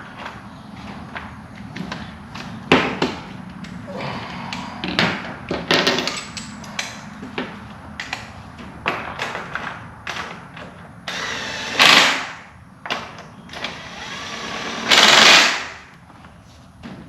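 Clatter and knocks of parts and hand tools being handled while a cover is refitted on an ATV, with two louder hissing bursts of about a second each, one about eleven seconds in and one near the end.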